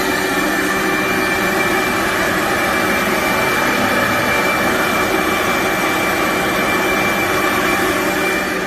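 BIDELI BD-M248 air-cooled industrial grinder running at speed: a loud, steady whir with a high whine over it.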